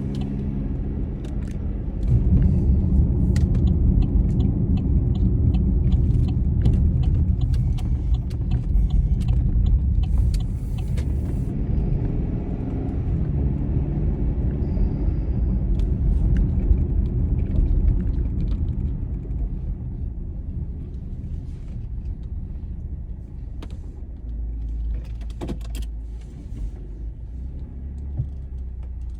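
Car on the move, heard from inside the cabin: a steady low rumble of engine and road that gets louder about two seconds in and eases off after about eighteen seconds, with scattered small rattles.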